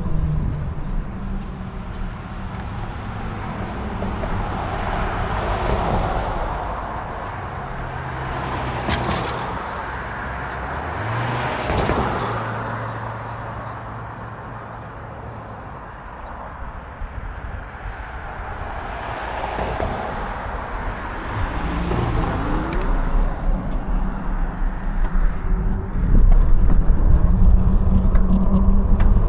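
Cars passing on the road one after another, each swelling and fading, about five times. Near the end a louder low rumble of wind on the microphone as the bike gets moving.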